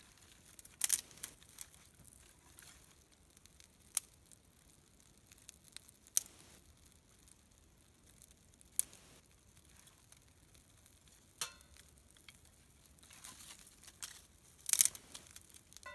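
Small twig-and-kindling campfire being tended: a handful of sharp snaps and crackles spread through the quiet, with brief rustling of dry twigs and leaves, the loudest cluster near the end.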